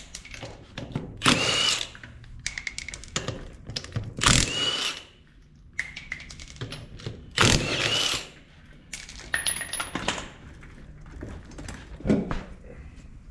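Cordless impact wrench zipping lug nuts off a wheel in three short bursts, each with a rising whine, with clicks and clatter of the nuts and tool in between.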